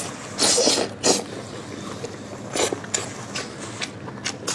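Close-up wet mouth sounds of eating saucy monkfish by hand: a string of short smacking, sucking and squelching bites and chews, irregularly spaced.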